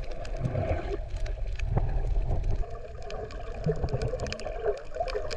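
Underwater sound picked up by a GoPro camera while snorkeling: a muffled, steady rumble of moving water with many scattered sharp clicks and crackles.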